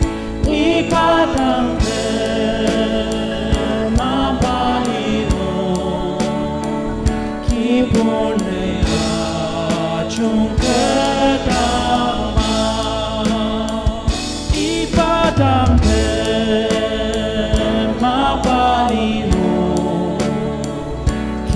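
Gospel hymn sung by a group of voices over instrumental accompaniment with a steady beat.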